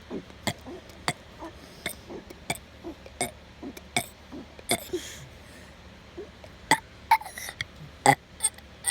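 A five-year-old boy forcing out a string of short burps, about a dozen in quick succession, with a pause a little past the middle.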